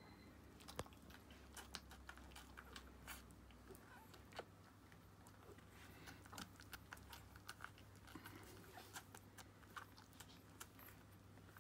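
Faint wet smacking and clicking of Aussiedoodle puppies suckling at their mother's teats: small irregular clicks several times a second, over a faint low hum.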